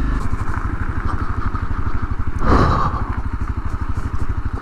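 Honda CRF250L's single-cylinder four-stroke engine running at low speed as the motorcycle rolls slowly along a gravel road, its firing pulses even and steady. A short louder burst of noise comes about halfway through.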